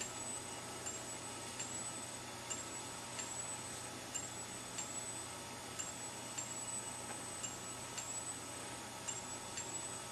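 Several fire alarm strobes flashing out of step with each other: each flash is a faint click followed by a short, high, rising whine as the strobe charges again. They come about one and a half times a second in an uneven pattern, over a steady electrical hum.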